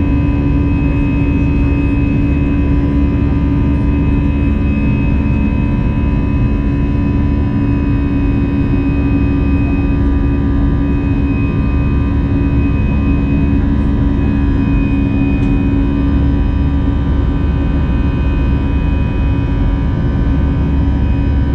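Airbus A320-200 jet engines and airflow heard inside the passenger cabin in flight: a loud, steady drone with a few constant whining tones.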